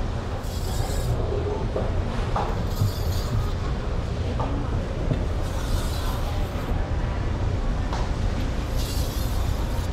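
A long slicing knife drawn along a whetstone in slow strokes, a hissing scrape four times, roughly every two to three seconds, over a steady low rumble.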